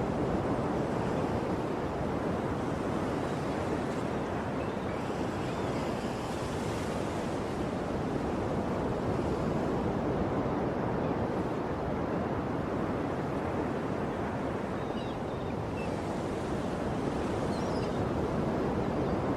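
Ocean surf washing steadily onto a shore, a continuous wash of breaking waves that swells and eases slightly. A few faint high chirps, likely forest birds, come in near the end.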